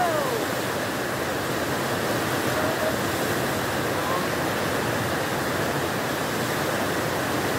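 Flood-swollen river rushing steadily: a constant, even roar of high, fast brown water.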